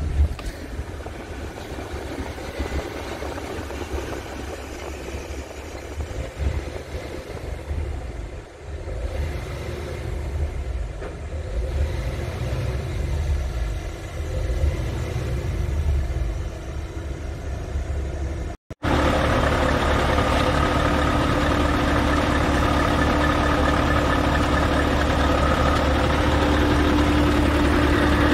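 Scania S730's V8 diesel engine idling: a low rumble heard from inside the cab. About two-thirds of the way through, after a sudden cut, it is louder and closer at the engine, with a steady hum.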